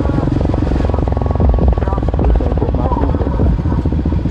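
Yamaha Raptor 700R's single-cylinder four-stroke engine running steadily under way, a fast, even stream of firing pulses over a heavy low rumble.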